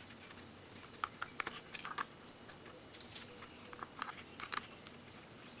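Faint, scattered clicks and ticks of a small screwdriver working the screws out of the Dremel Stylus's plastic housing.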